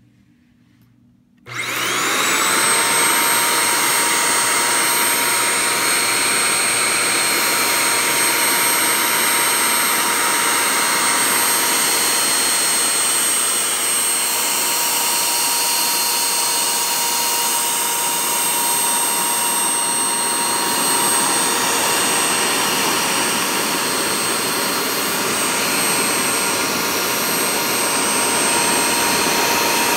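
Dyson DC07 upright vacuum cleaner switched on about a second and a half in, with its bin off: the motor spins up within a moment to a steady whine over a loud rush of air, and keeps running evenly.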